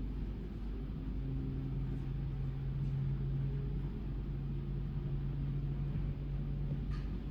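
Steady low engine drone of airport ground-handling equipment idling, with a hum that grows firmer about a second in. A faint click comes near the end.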